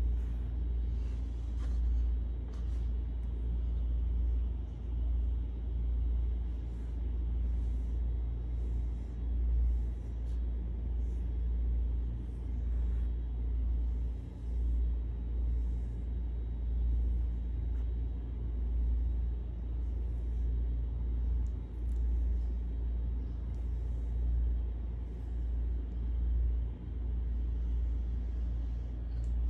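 Kitten purring close to the microphone: a steady low rumble that swells and eases with each breath. Faint brushing sounds come from a hand stroking its fur.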